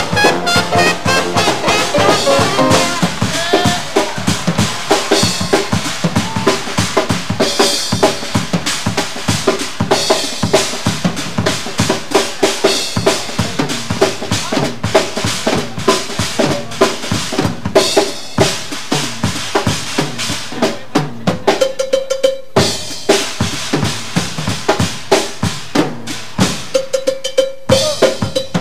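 Drum kit solo: fast, busy strokes on snare, toms, bass drum and cymbals, with brief breaks about 22 and 27 seconds in.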